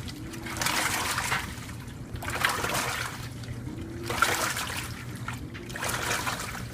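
2012 LG WaveForce top-load washing machine agitating a load: water and wet clothes splash and slosh in surges about every second and a half, about four in all, as the impeller turns one way and then the other. Under the splashing runs a steady low motor hum, with a faint whine that rises and falls with each stroke.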